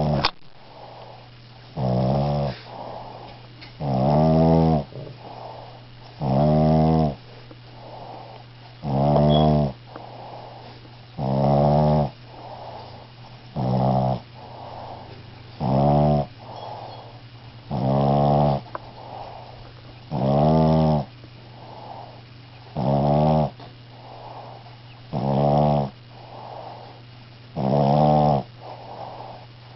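A pet snoring in a slow, even rhythm: a loud, pitched snore about every two and a half seconds, twelve in all, with a softer breath between each one.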